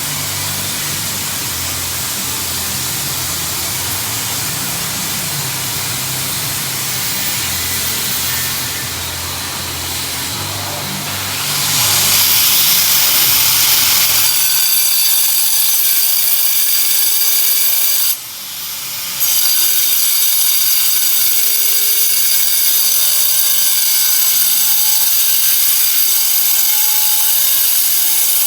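Power tool running under load, cutting: a steady, loud hiss of cutting noise. About halfway through it changes to a high motor whine with many overtones, which drops off briefly for about a second and then picks up again.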